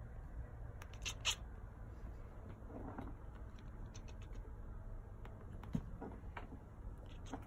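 Tabby cat chirping and chattering at a bug she cannot catch: short high-pitched chirps, a pair about a second in and more near the end, with fainter ones between. A single short knock about three-quarters through.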